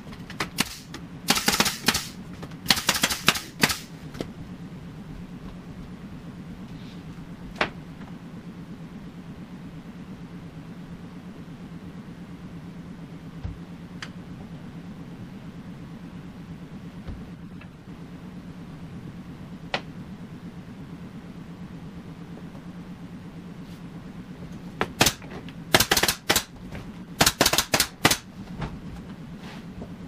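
Rapid sharp clacks in quick clusters while a wooden frame held in toggle clamps is worked on a workbench, in two spells near the start and near the end with a few single clicks between. A steady low machine hum runs underneath.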